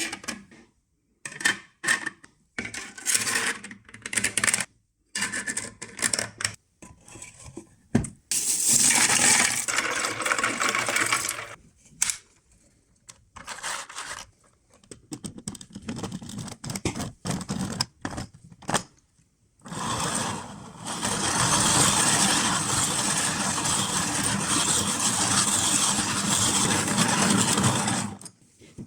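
Ice cubes clattering in a small plastic barrel: scattered short clinks and scrapes, then a long continuous rattling churn in the last third as a can is spun in the ice and water.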